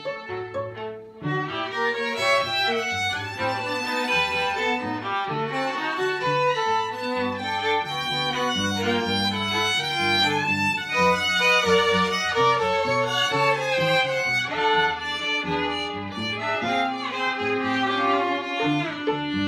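A string quartet of two violins, viola and cello playing together with bowed notes, the cello's low line under the violins.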